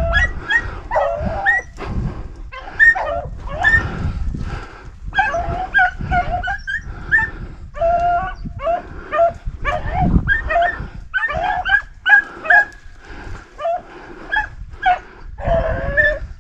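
A pack of beagles baying and yipping in an overlapping chorus, many short calls without a break: hounds giving voice as they run a rabbit's track.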